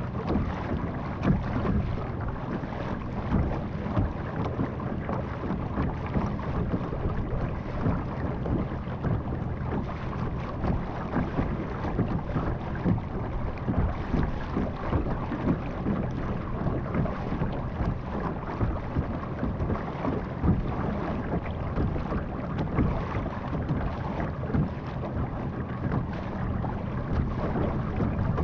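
Motorized Vibe Yellowfin 100 kayak under way: water rushing and splashing along the hull over a low steady motor hum, with wind buffeting the microphone.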